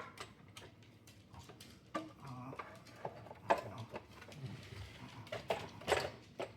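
Plastic clicks and knocks as the new front panel of a DeLonghi Magnifica espresso machine is fitted and pressed into place: irregular sharp taps, the loudest about halfway through and near the end.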